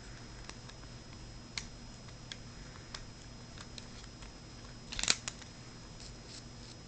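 Small scattered clicks and taps of a hex driver and screw being worked against a metal motor heatsink, with a short cluster of louder clicks about five seconds in.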